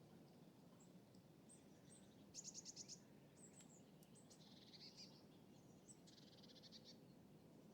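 Quiet lakeside ambience: a faint, low, steady rumble with small birds chirping over it. Two rapid trills stand out, one about two and a half seconds in (the loudest moment) and another near the six-second mark, with a short warble between them.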